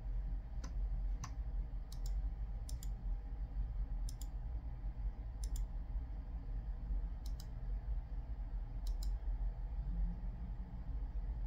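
Computer mouse clicking: two single clicks, then a series of quick pairs spaced a second or more apart, over a steady low hum.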